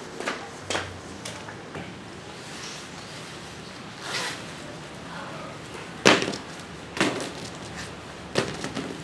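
Three sharp knocks as taped, brick-like packages are set down on a glass tabletop, the first the loudest. Before them comes a short rustle of jacket fabric.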